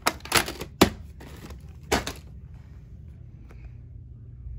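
A few sharp plastic clicks and knocks from a VHS clamshell case being handled, the loudest about a second in, followed by faint rustling.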